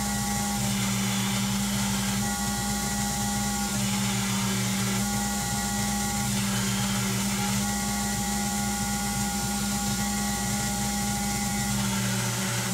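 Belt grinder motor running steadily while a 1095 steel float blank is pressed against the abrasive belt to grind its tang. The higher grinding whine comes and goes in about four passes as the steel is put to the belt and lifted off.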